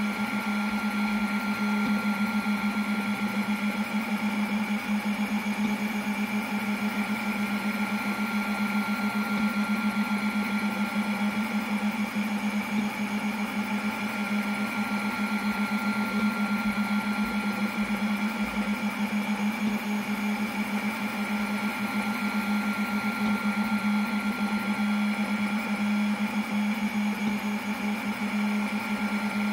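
Snapmaker 2.0 A150 laser module engraving wood: a steady low machine hum with a thin high whine above it.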